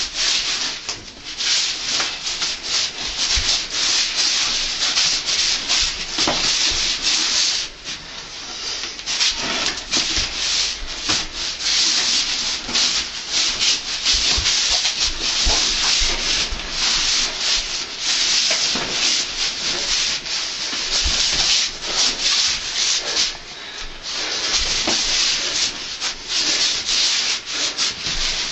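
Sleeved forearms rubbing and knocking against each other in a wing chun sticky-hands (chi sao) drill: a continuous, ever-shifting rustle of fabric, with many quick light knocks and a few low thuds.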